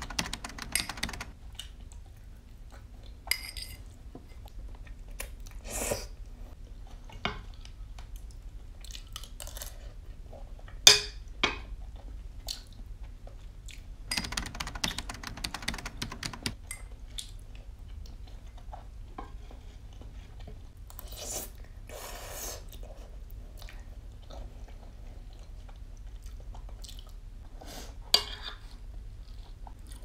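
Close-up eating sounds: chewing, with a fork and knife clinking and scraping on a plate. There are sharp clinks now and then, the loudest around 11 s and near the end.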